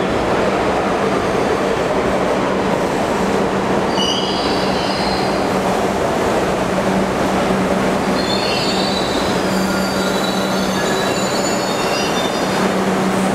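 New York City Subway R62 train pulling into a station and slowing to a stop, with a steady rumble and hum of the cars and high-pitched wheel squeals about four seconds in and again from about eight to twelve seconds in.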